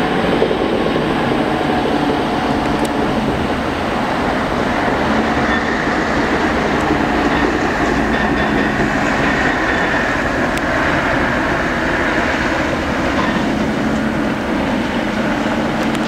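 Atlas Copco HB5800 hydraulic breaker on a CAT 330DL excavator hammering rock, a rapid, steady stream of blows.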